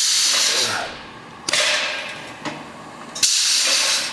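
Parts of a Taylor panel clamp sliding along their steel rails, metal rubbing on metal. There are three strokes, each a sudden rasping hiss that fades over about a second.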